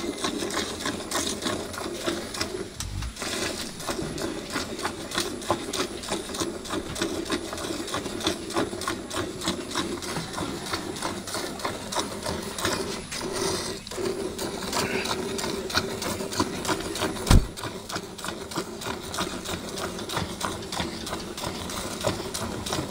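Cow being hand-milked: jets of milk squirting from the teats into a nearly full aluminium pail of frothy milk, in a fast, steady rhythm of short strokes. A single sharp knock partway through.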